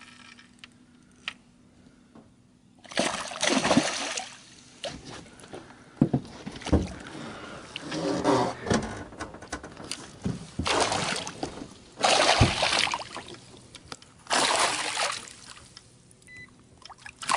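Hooked pike thrashing at the water's surface beside a boat while being played on a spinning rod: after a few quiet seconds, a series of splashes in bursts of a second or so.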